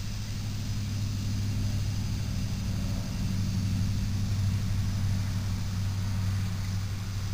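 Aerosol spray paint can hissing as paint is sprayed onto a steel yard cart, over a louder steady low hum.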